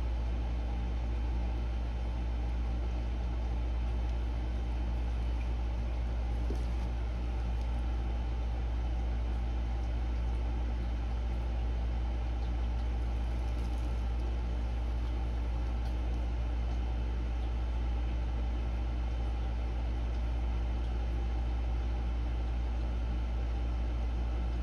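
A steady low hum that holds even throughout, with no other distinct sound.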